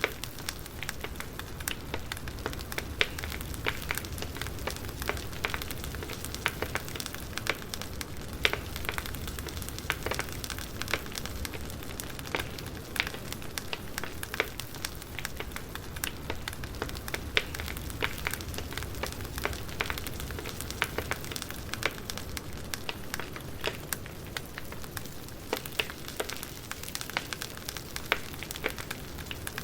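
Campfire crackling: burning wood giving off frequent irregular pops and snaps over a steady low rumble and hiss.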